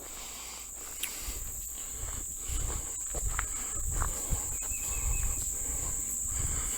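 Insects keeping up one steady, high-pitched buzz, with low, irregular thumps and rustling underneath.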